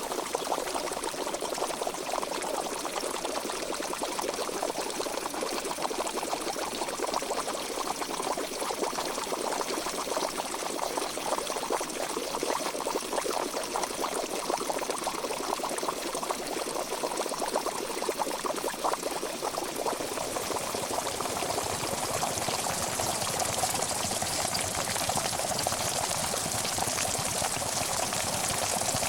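Pot of water boiling: steady dense bubbling and popping, turning hissier about two-thirds of the way through.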